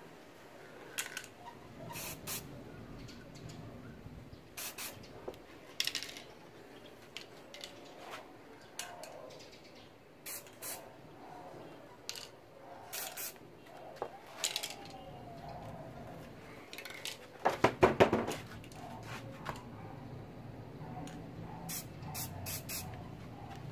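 Aerosol spray paint can hissing in many short bursts, each well under a second, a second or two apart. A loud run of quick rattling clacks comes about three-quarters of the way through and is the loudest sound.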